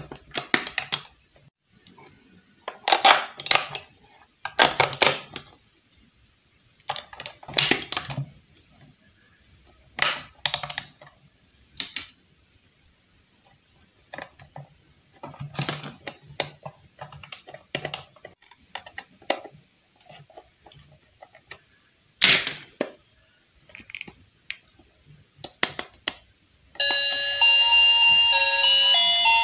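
Hard plastic toy parts being handled, with irregular clicks, taps and scrapes as a knife tip works the screw of the battery cover. Near the end, the battery-powered Hello Kitty toy microwave starts playing a beeping electronic tune of stepping notes.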